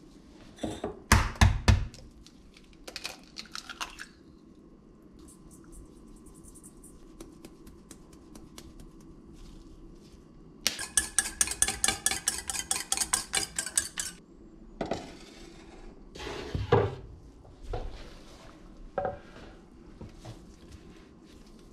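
Kitchen handling sounds around a stainless steel mixing bowl. An egg is knocked against the bowl about a second in, and halfway through there is a run of rapid clicking over the bowl, about eight a second for some three seconds. Near the end come a few knocks and a thump as a wooden cutting board is set on the counter.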